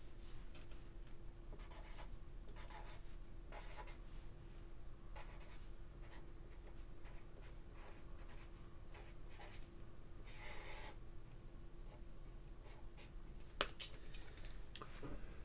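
Felt-tip marker writing on paper on a clipboard: a string of short scratchy strokes, one a little longer, then a single sharp click near the end.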